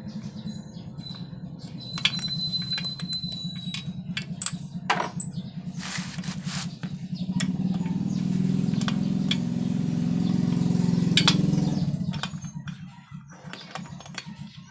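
A steady low motor hum that swells from about eight seconds in and drops away about four seconds later, with scattered sharp clicks and knocks like tools and metal parts being handled.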